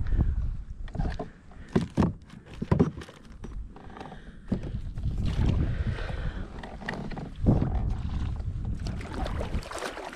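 Several sharp knocks and scraping noises on a plastic pedal kayak whose Mirage drive is stuck fast in marsh mud, over a low rumble of handling or wind noise.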